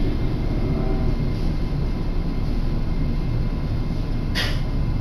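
Keihan Katano Line commuter train running, heard from inside the carriage: a steady low rumble, with one brief sharp noise near the end.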